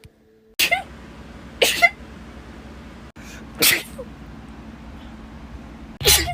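Human sneezes, four of them about two seconds apart, each a sharp voiced burst over a low, steady background hum.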